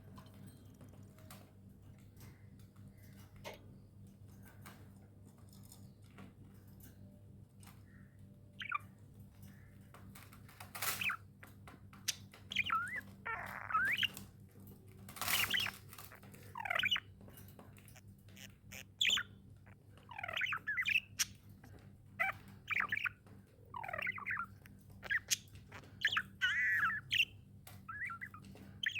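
Pet budgerigars chirping and chattering. Small clicks at first, then from about nine seconds in a busy run of short, warbling calls several times a second, with a couple of harsher squawks.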